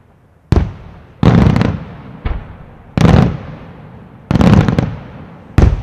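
Aerial fireworks shells going off: six sharp booms about a second apart, each trailing off in echo. Two of them, about a second in and past the middle, come as a quick rattle of several cracks.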